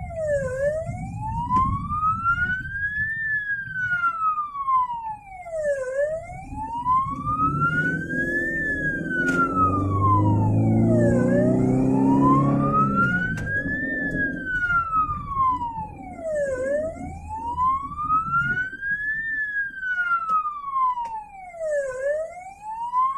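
Ambulance siren on a slow wail, rising and falling about every five seconds, heard from inside the cab. Around the middle, the engine rises in pitch as the ambulance speeds up and briefly becomes the loudest sound.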